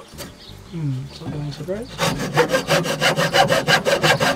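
Hacksaw cutting through a wooden batten. It starts about halfway through in quick, even rasping strokes, several a second.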